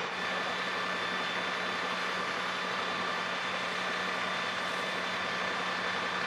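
Fire engines' diesel engines and pumps running steadily: an even mechanical drone with a steady low hum.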